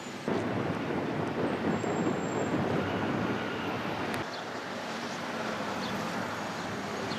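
Steady rushing outdoor street noise with no clear tones. It jumps louder about a third of a second in and drops back about four seconds in, where the sound changes abruptly.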